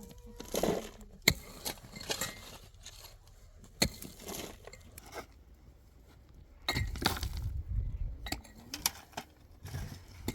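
Irregular sharp clinks and knocks of hard objects being handled and set down, with a busier stretch of knocking and shuffling about two-thirds of the way through.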